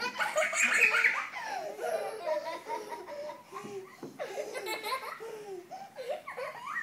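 Young children laughing, loudest in the first second or so.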